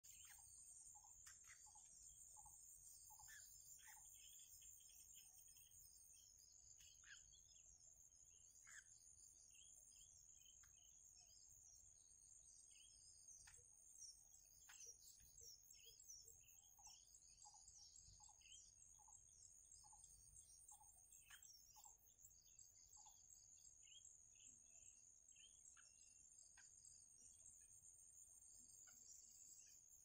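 Faint outdoor ambience: a steady high-pitched insect drone, with short bird chirps scattered throughout.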